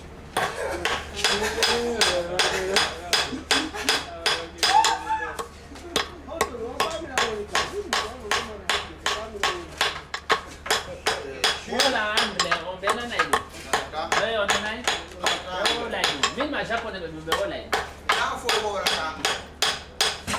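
Hammer blows on silver being forged into a ring, about three sharp metallic strikes a second, kept up steadily throughout.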